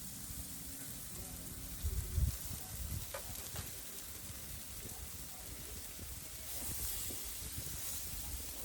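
Chicken leg quarters and wings sizzling on a grill, a steady hiss, with a short low bump about two seconds in and a couple of small clicks soon after.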